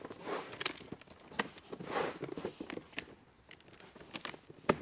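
Coiled absorber pipe being worked around and clipped into an aluminium frame: scattered light clicks and rustles, with one sharp click near the end.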